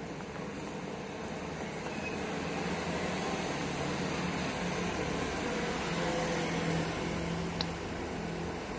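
Steady mechanical hum from a nearby engine or motor, growing a little louder in the middle, with one sharp click near the end.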